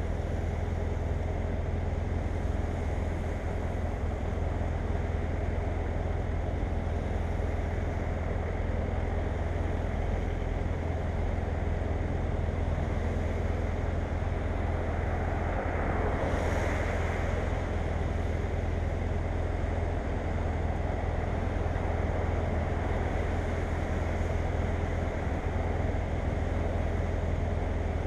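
Wind rush on the microphone of a BMW F800GS motorcycle under way, over a steady low drone of the engine and road. The rush swells briefly a little past halfway.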